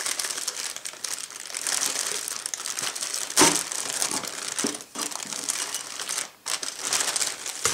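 Clear polythene bag crinkling and rustling as plastic model-kit sprues are handled and slid out of it, with one louder crackle or knock about three and a half seconds in.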